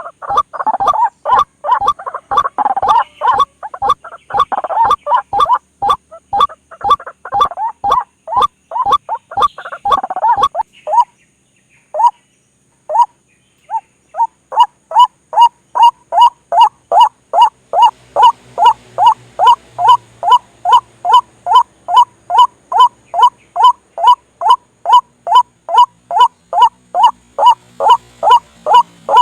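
White-breasted waterhen (ruak-ruak) calls played as a bird-lure recording: short, repeated calls. They come in a dense, rapid run, break off about eleven seconds in with only a few scattered calls, then resume as an even series of about two to three calls a second.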